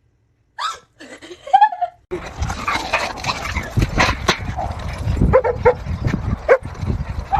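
A dog barking and yipping in short, repeated calls over a noisy background, which begins about two seconds in.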